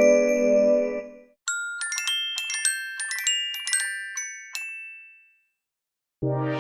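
Android ringtones played one after another. The end of one tune gives way about a second and a half in to a short, high melody of quick bell-like notes, which rings out and fades. A new, fuller tone with low notes starts near the end.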